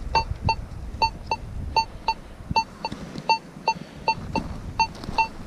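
AKA Signum MFD metal detector giving short high beeps, about two or three a second, as the coil sweeps back and forth over a weak target signal.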